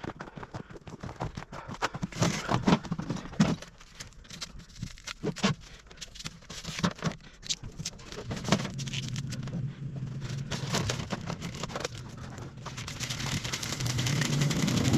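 Sped-up work noise as a cable line is prepped and cut: a quick string of knocks, clicks and scrapes, then from about eight seconds in a steady low hum that grows louder near the end.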